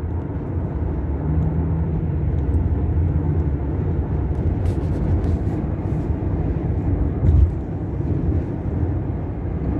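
Car at highway speed heard from inside the cabin: a steady low rumble of road and engine noise, with one louder low thump about seven seconds in.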